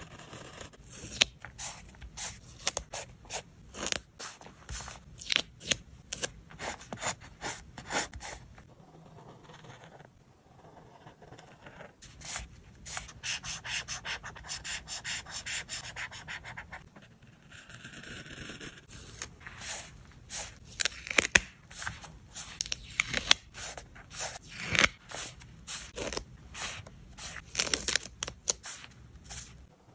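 Paper stickers peeled off their backing sheet and pressed onto a grid-paper journal page, making many short crackles and taps. About halfway through there is a stretch of steady scratching from a brush-tip marker colouring on the paper.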